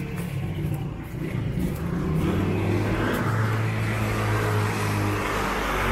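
A road vehicle's engine running on the street below, its low hum shifting in pitch, with a rushing noise that grows from about halfway through as it passes.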